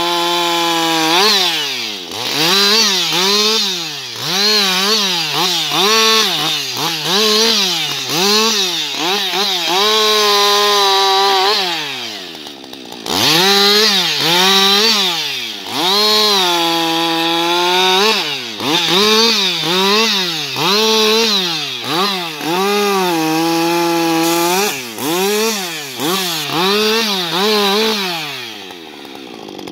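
Husqvarna 560XP two-stroke chainsaw running hard and cutting wood, its engine pitch rising and sagging about once a second, with a few longer stretches held high. It drops briefly about twelve seconds in and again near the end.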